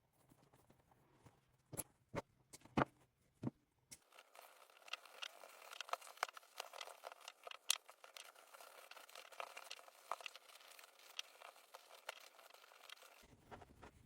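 Hands working an old leather baseball glove: a few sharp clicks, then about nine seconds of dense crackling and scratching of leather being rubbed and handled.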